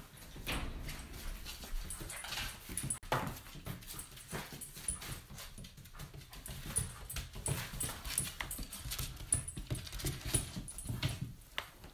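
Cairn terrier puppy making play noises while it burrows under a plush pet bed and shoves it across a tile floor, mixed with irregular scuffing and bumping of the bed on the tiles.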